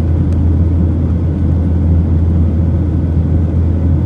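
Steady low rumble of a Boeing 737-900's cabin in flight: its CFM56 engines and the airflow over the fuselage, heard from inside at a window seat over the wing.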